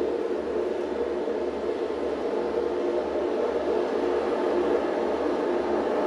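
Steady dense rumbling noise with a faint hum running through it, growing slightly louder near the end: the soundtrack of an art installation standing for a sea storm.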